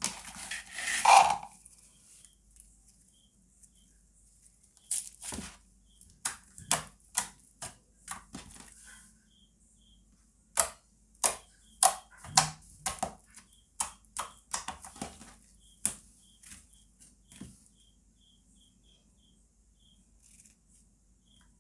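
Toothpaste slime being squeezed, poked and stretched by hand: irregular sharp, sticky clicks and pops, with a louder squelching patch in the first second or two and a quiet stretch near the end.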